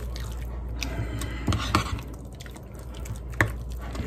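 Metal spoon stirring a thick mix of sour cream, mayonnaise and shredded cheese in a bowl: wet squelching and scraping, with a few sharp clicks of the spoon against the bowl, the loudest near the end.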